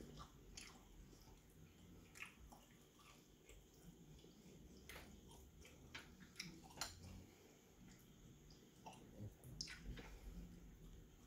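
Faint chewing and lip-smacking of a person eating barbecue-sauced chicken wings by hand, with scattered short, wet clicks and smacks at irregular intervals.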